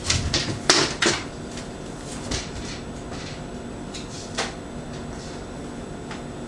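Knocks and thuds as a person walks off: a quick run of sharp knocks in the first second or so, then a few fainter knocks, over a steady low room hum.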